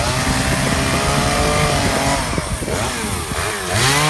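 Gas chainsaw running and revving up and down several times, its chain just rejoined with a cut-off nail head peened over as a rivet.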